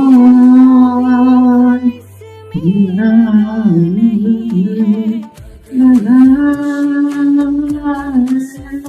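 A voice singing a devotional bhajan in long, held, ornamented notes, in three drawn-out phrases with short breaks between them.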